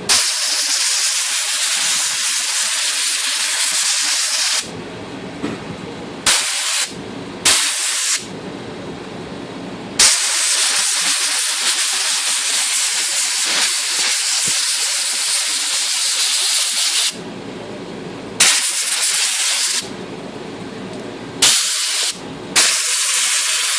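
Compressed air blasting into a typewriter's keyboard levers and type-bar comb to blow out loose dirt: a loud hiss in about seven blasts that start and stop abruptly, two of them long (about 4 and 7 seconds) and the rest short.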